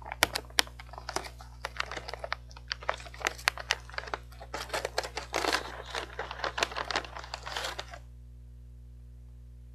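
Plastic snack bag of sweet potato sticks crinkling and crackling as it is handled and pulled open, in rapid sharp crackles that stop suddenly about eight seconds in. A steady low hum runs underneath.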